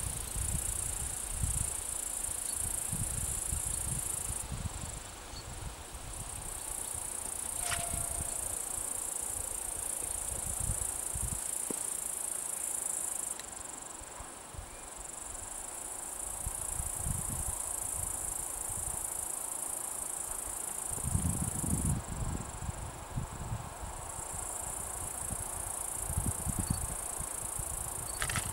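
Grass insects stridulating in a continuous high-pitched buzz that stops for a second or two three times, with low gusts of wind on the microphone.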